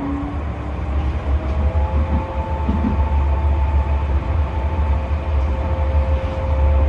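Tram running along the track, heard from on board: a heavy low rumble of wheels on rails with a steady electric motor whine over it.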